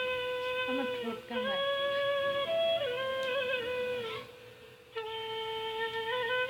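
Background music: a slow melody on a flute-like wind instrument, long held notes that step between pitches, with a short break about four seconds in.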